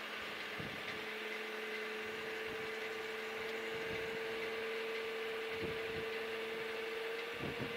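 Steady machine hum with a whine held at one pitch and creeping slightly upward, from the cable ferry's hydraulic propeller drive running, with a few faint clicks.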